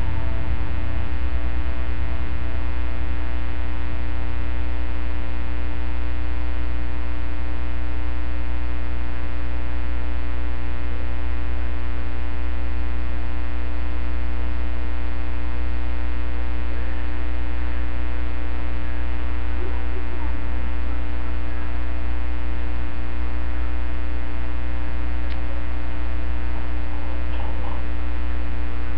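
Loud, steady electrical mains hum with a buzzy stack of many evenly spaced overtones.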